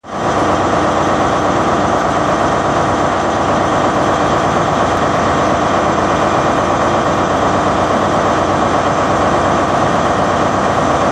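Loud, steady mechanical drone like a running engine, even in level throughout.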